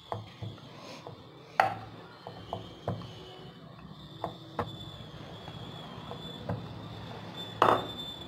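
Wooden rolling pin rolling wheat parotta dough thin on a wooden chapati board: irregular wooden knocks and clatters, the loudest about a second and a half in and again near the end.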